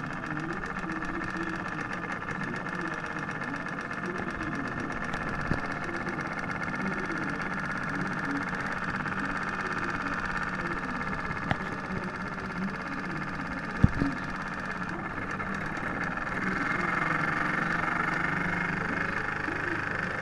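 Toy live-steam engine running steadily, its piston exhaust chuffing rapidly over a steady hiss of steam, with a few sharp clicks. The steam hiss grows louder a few seconds before the end.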